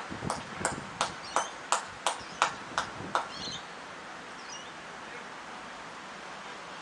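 One person clapping hands steadily, about three claps a second, stopping about three seconds in. Faint bird chirps follow over a steady outdoor hiss.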